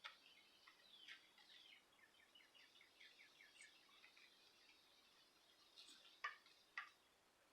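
Faint birdsong coming in through an open window: a string of quick, high chirps and short trills. Two short sharp taps sound near the end.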